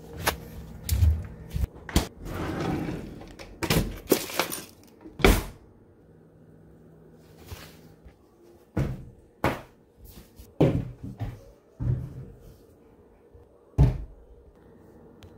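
A run of irregular thumps and knocks from things being handled and set down, with doors or lids shutting, close to a handheld phone's microphone.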